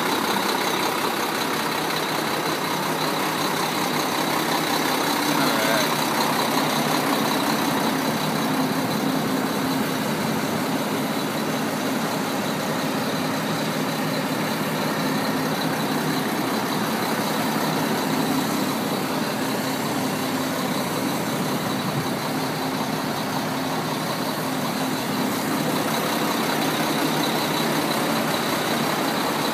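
Mack RD688S semi truck's diesel engine idling steadily.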